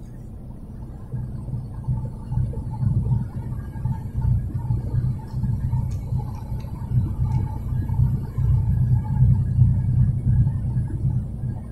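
Low, steady road and engine rumble inside a vehicle moving at highway speed.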